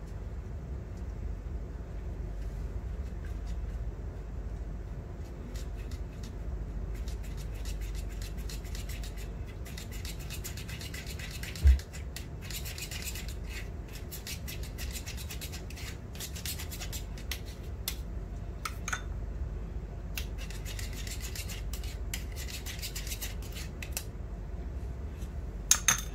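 A spoon scraping and rubbing against the mesh of a small hand strainer, pressing a lumpy flour-and-milk paste through it, in fast scratchy strokes that start about a quarter of the way in and come in runs with short pauses. A single low thump partway through, and a couple of clicks near the end.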